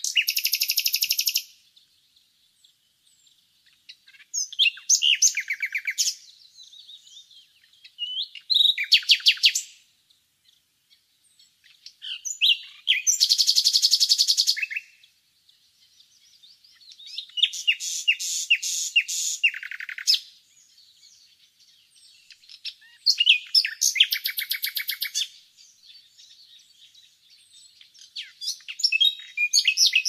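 Nightingale singing: seven loud phrases of fast repeated notes, each one to three seconds long and a few seconds apart, with fainter bird twittering in the pauses.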